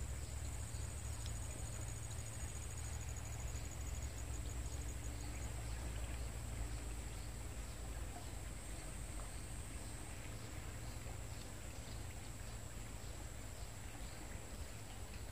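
Riverside ambience: a steady high-pitched insect buzz, with a fast pulsing trill for the first few seconds, over a low steady rumble and faint scattered ticks.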